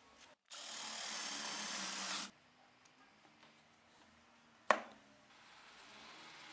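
A steady rushing, power-tool-like noise for about two seconds, then a single sharp knock on the bench, then soft scraping as a razor blade cuts a small washer against a wooden block.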